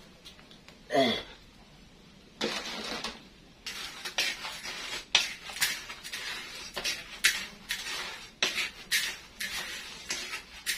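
Krupuk crackers frying in hot oil in a wok, sizzling and crackling from about two and a half seconds in, with many sharp clinks and scrapes of a utensil against the wok.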